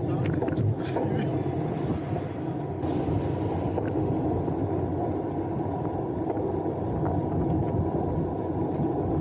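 Steady wind rushing over a handlebar-mounted camera's microphone on a moving road bike, mixed with tyre noise on asphalt.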